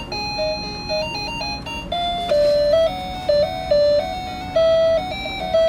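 Instrumental electronic tune with no singing, a simple melody of stepped notes, played through the small built-in speaker of a WT.DUCK duck stair-climbing toy.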